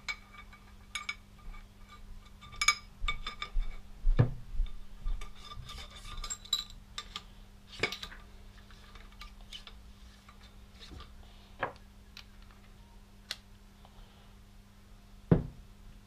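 Steel motorcycle fork parts, the damper rod and piston and the chrome fork tube of a Yamaha XS1100 front fork, clinking and rubbing against each other as the damper is fed down through the fork leg. Quick ringing metal clicks cluster in the first half, then a few single knocks follow at intervals.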